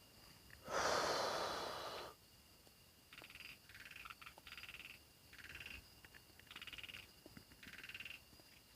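A frog calling over and over, short rattling pulsed croaks about once a second. About a second in, a brief loud hiss lasts just over a second and fades slightly.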